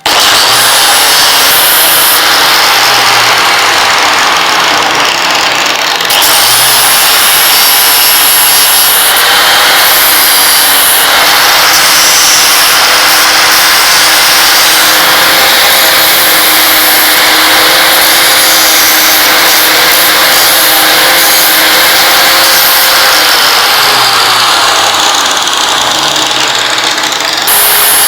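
Electric power tool running loudly and steadily, its motor pitch dipping near the end.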